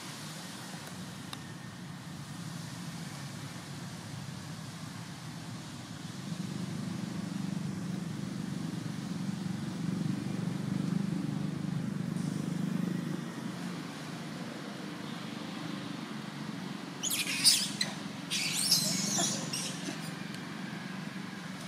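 A low, steady motor hum, like a distant vehicle engine, growing louder through the middle and easing off again. Near the end come a few short, sharp crackling noises.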